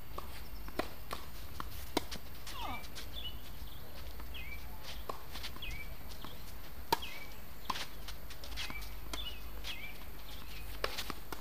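Tennis ball struck by rackets and bouncing on a hard court during a doubles rally: sharp pops at uneven intervals, the loudest about seven seconds in. Behind them a small bird chirps again and again, over a steady low rumble.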